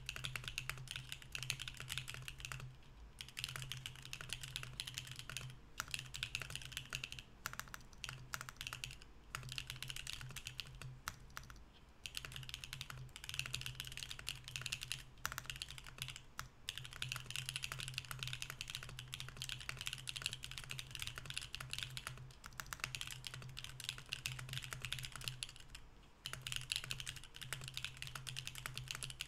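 Continuous typing on a Mercury65 mechanical keyboard with stock BSUN Anya switches in an aluminum plate and no foam: a dense, steady stream of keystroke clacks with a few brief pauses.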